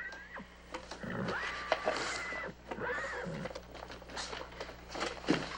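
A horse whinnying three times: a short call, then a long held one, then a shorter one.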